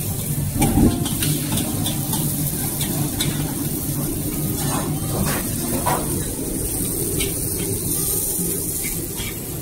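Noodles frying in a wok over a charcoal fire, with a steady sizzle, and a metal ladle clinking and scraping against the wok now and then as the cook stir-fries.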